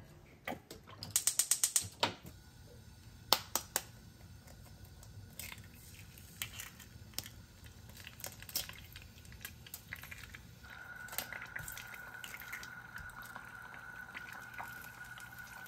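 Gas hob's igniter clicking rapidly for about a second as a burner is lit, followed by scattered taps and clicks of eggs being cracked against a ceramic frying pan and dropped in. A faint steady high tone joins in about two-thirds of the way through.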